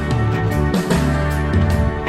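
Background music: an instrumental passage of a pop song with guitar, a steady beat and no singing.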